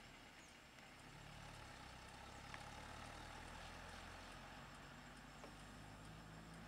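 Faint, steady hum of a vehicle engine idling, coming in about a second in, with one faint click partway through.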